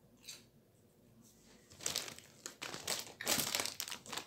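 A plastic potato-chip bag crinkling as it is handled close to the microphone: a brief rustle near the start, then a longer stretch of crinkling from about two seconds in, loudest near the end.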